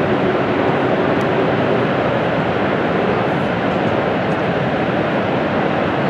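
Steady, unbroken rushing of Niagara Falls: a thick wash of falling water with no rhythm or change.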